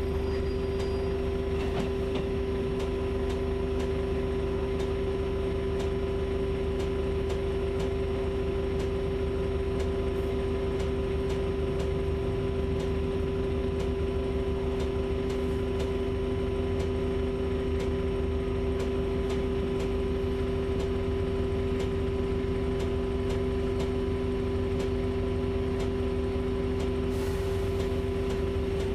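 Cabin sound of a Volvo 7900A Hybrid city bus standing still: a steady electric hum and whine over a low rumble, with a second, lower tone that drops out near the end.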